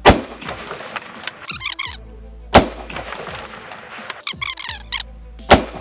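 Three single rifle shots from an FN15 M4A1-clone carbine firing 5.56 mm ball, spaced roughly three seconds apart.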